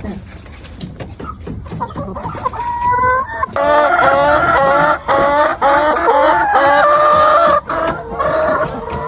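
Chickens clucking, rising to a loud run of repeated cackling calls from about three seconds in until near the end.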